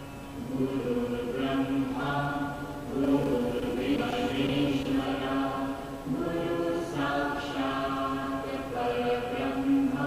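Background music of voices chanting in long held notes, like a sung mantra, coming in about half a second in.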